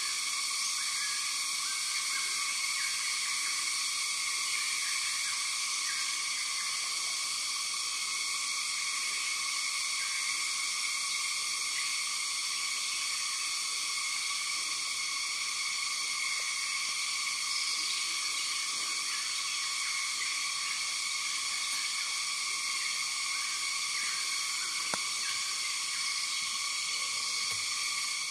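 Steady, high-pitched insect drone of a cicada chorus, several shrill pitches sounding together without a break.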